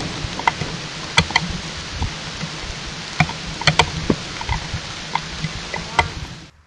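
Steady rain recorded by a trail camera, with irregular sharp ticks of raindrops striking the camera; it cuts off suddenly near the end.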